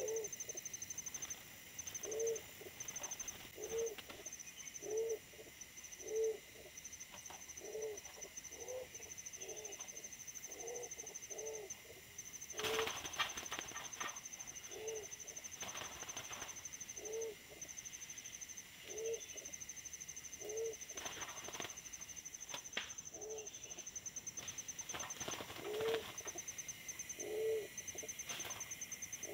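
Pigeons giving short, low coos over and over, about once a second. Wings flap briefly about 13 seconds in. A steady, high, pulsing buzz runs underneath.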